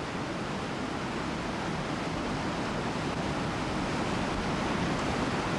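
Rushing water of river rapids: a steady whitewater rush that grows slowly louder.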